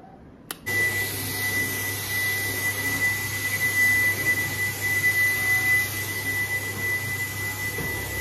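Cordless stick vacuum cleaner switched on with a click about half a second in, then running steadily with a high whine over its motor hum.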